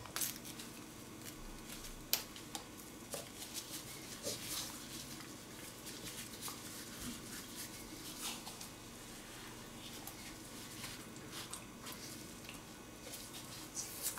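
Close handling sounds of nitrile-gloved hands working raw squid on a cutting board: soft rustles and wet squelches with scattered small clicks and taps, one sharper click about two seconds in.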